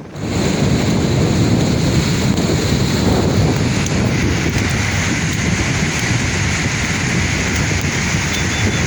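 Sea waves surging on the shore in a steady rush, with wind buffeting the microphone. The sound dips briefly right at the start.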